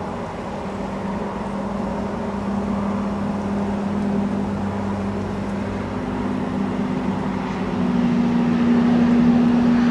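A steady low hum of a few close pitches over a rushing noise, slowly getting louder, with a slightly higher tone joining about halfway through.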